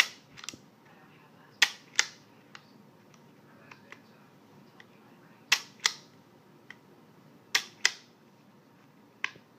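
Trigger mechanism of a disassembled NSG Rapide double-action paintball pistol being dry-cycled by hand. It gives sharp clicks in three pairs about a third of a second apart, with single clicks at the start and near the end. Each trigger pull draws the hammer plate back and then releases it.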